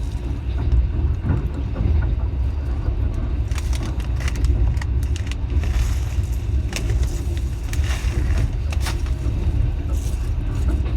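Moving train: a steady low rumble with scattered clicks and rattles.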